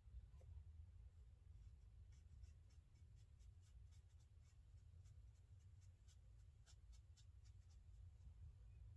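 Faint, irregular scratching and tapping of a small paintbrush working on watercolour paper, over a steady low hum.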